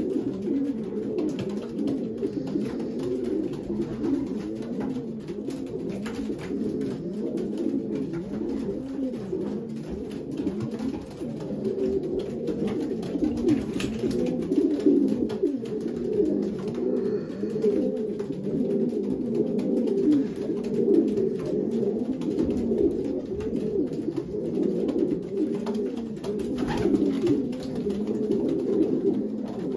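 Racing pigeons cooing together in a loft: many low coos overlapping without a break.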